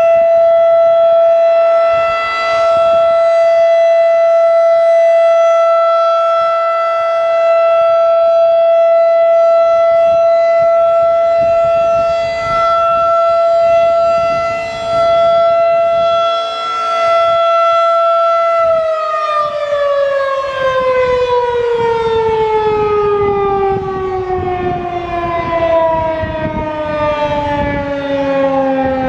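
Federal Signal 2001-SRN electromechanical rotating siren sounding the steady Alert tone of its routine test, swelling and fading in loudness as the horn turns. About 19 seconds in it cuts off and winds down, its pitch sliding steadily lower.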